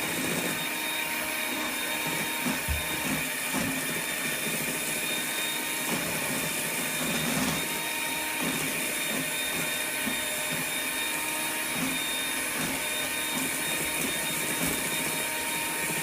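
Electric kitchen mixer running steadily, beating egg whites into cupcake batter.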